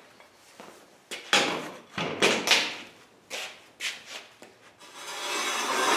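Steel parts being handled: a series of sharp knocks and clanks, then a longer scraping sound building near the end.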